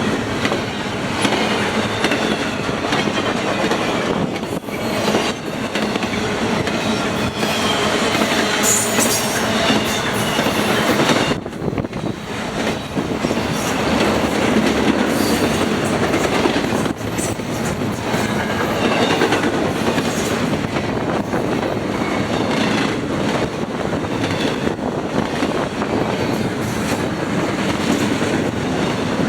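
Norfolk Southern freight train's cars rolling past, wheels clicking over the rail joints, with a rumble and some high wheel squeal now and then.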